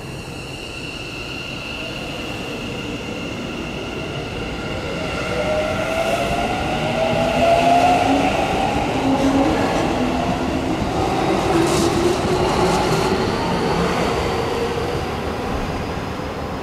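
Keikyu New 1000 series train's IGBT-VVVF inverter and traction motors whining as the train pulls away and accelerates. A steady high whistle comes first, then several tones glide upward in pitch, loudest about halfway through.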